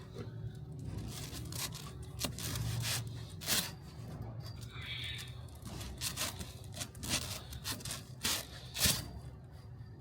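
Cord being pulled and drawn through a charpai's frame and weave while it is re-strung, heard as a series of short rasping pulls at irregular intervals.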